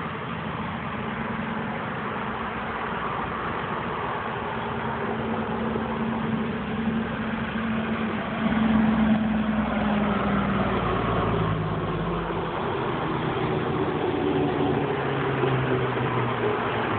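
Small DC motor of a FLED solar-engine BEAM robot, stalled and squealing, its pitch shifting with the amount of sunlight on the solar panel, over a steady hiss. The tone is loudest about halfway through.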